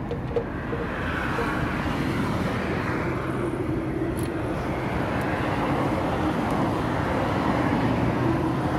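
Steady drone of a running vehicle engine nearby, swelling over the first couple of seconds and then holding. A light metallic click sounds about four seconds in.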